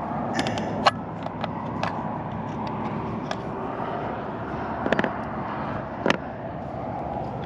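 Wind buffeting the microphone as a steady rushing noise, with a few sharp clicks and knocks of handling: one about a second in, a quick cluster near five seconds, and another about a second later.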